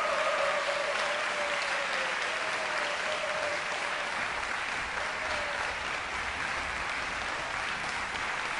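Concert hall audience applauding steadily as the performers bow and leave the stage.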